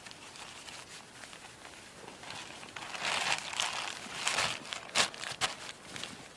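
Rustling, crunching handling noise, quiet at first, then louder from about halfway through, with a few sharp clicks near the end.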